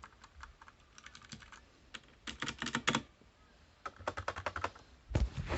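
Typing on a computer keyboard: quick bursts of keystrokes with short pauses between, the last burst near the end louder with heavier, thuddier strokes.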